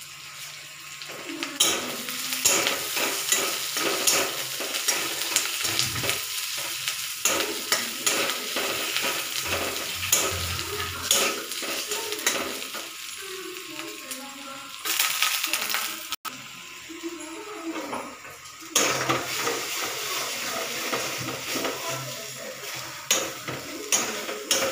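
Chopped onions sizzling as they fry in oil in a kadai, with a spatula scraping and knocking against the pan as they are stirred. The stirring picks up about a second and a half in.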